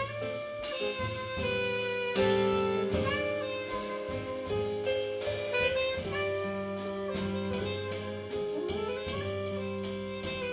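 Jazz quartet playing: a saxophone melody with sliding notes over keyboards, walking bass and drums with steady cymbal strokes.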